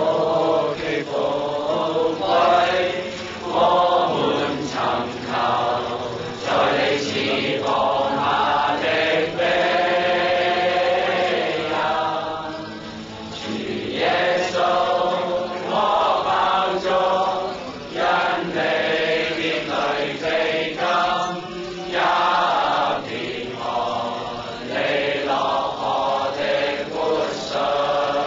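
A group of men singing a worship song together, in long sung phrases with short breaks between them.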